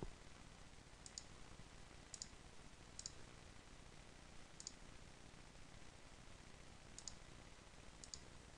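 Faint computer mouse button clicks: about six, spread out, several of them quick double clicks, over a steady low hiss.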